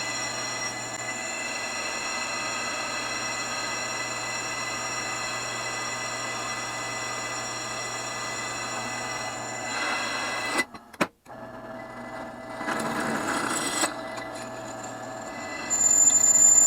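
Drill press running at slow speed while a Rodman Reaper bit drills a brake rotor: a steady motor hum that stops briefly about eleven seconds in, then resumes, ending with a loud high-pitched squeal near the end.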